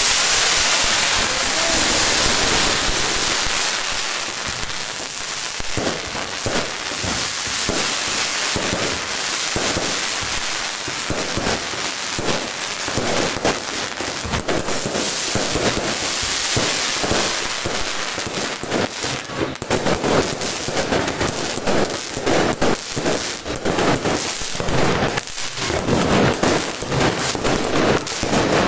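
Fireworks going off in a display. A dense crackling hiss fills the first part, then rapid pops and bangs come thicker near the end.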